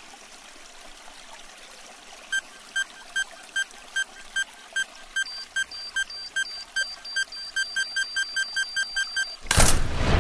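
Electronic countdown beeping from a bomb anklet's beeper, starting about two seconds in at roughly two and a half beeps a second and speeding up to about six a second, over a steady faint hiss. Just before the end the beeping stops and a sudden loud rushing boom cuts in.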